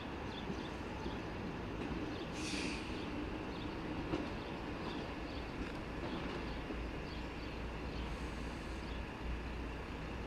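Railway track maintenance machine running during a slow shunting move: a steady low engine drone with a mid-pitched hum, and a brief hiss about two and a half seconds in.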